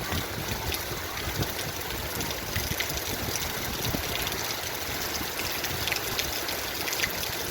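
Heavy rain falling steadily, with many separate drop hits heard through the even rush of the downpour.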